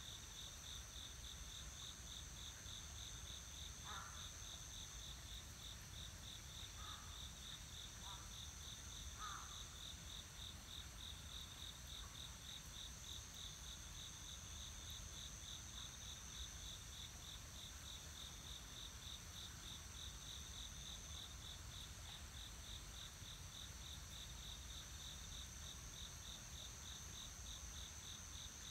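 Faint chorus of singing insects: a steady high trill over an evenly pulsing chirp about three times a second. A few brief, lower calls come between about four and nine seconds in.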